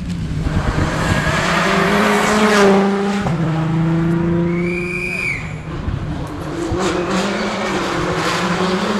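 A World Rally Car's turbocharged four-cylinder engine at full throttle on a tarmac stage, its note stepping with each gear change. About five seconds in, a short tyre squeal rises and falls.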